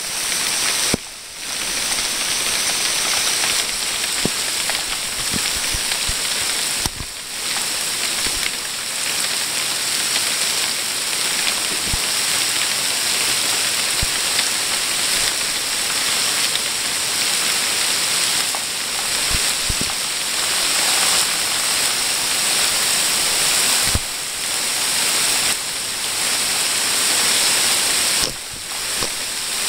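Rainstorm: a steady downpour of warm rain falling on pavement, with a few sharp drip taps close by.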